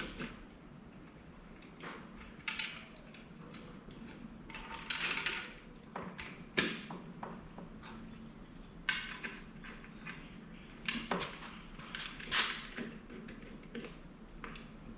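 Light, scattered clinks and scrapes of metal engine parts and hand tools being handled, about eight in fifteen seconds, over a faint steady hum.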